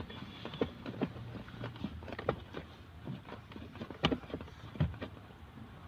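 Scattered light clicks and knocks of a hand tool working the screws of an AC blower fan motor being fitted back into place, with a sharper knock about four seconds in and another just before five.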